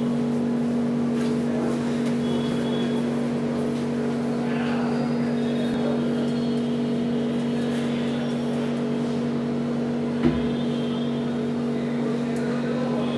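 Steady low machine hum with several fixed tones and no change in pitch. About ten seconds in there is a single sharp knock as a carved wooden temple pillar is set down on the wooden base.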